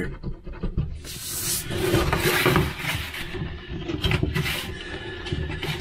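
Rustling and rubbing handling noise, loudest in the first half, with a few light knocks later on.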